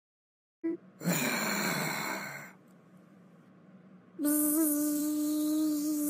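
A short noisy burst about a second in. From about four seconds a bee buzz starts: one steady, held buzzing tone.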